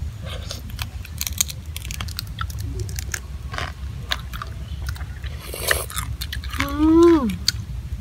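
Grilled crab being eaten by hand: crunching and chewing of shell and meat, with many short, sharp cracks and smacks. Near the end comes a brief voice sound that falls in pitch.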